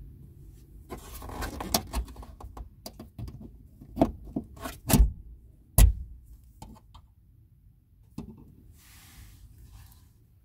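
Pliers gripping and pulling a plastic trim clip out of its hole in a VW Golf Mk5's metal tailgate frame: a run of sharp clicks and knocks of metal and plastic, the loudest two near the middle, then a short rustle near the end.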